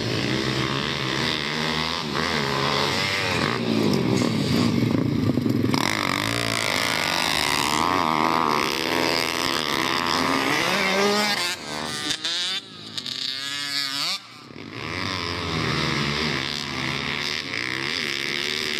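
Pit bike engines revving hard, their pitch rising and falling as the riders accelerate and back off through the turns. The sound drops away for a few seconds about twelve seconds in, then builds again.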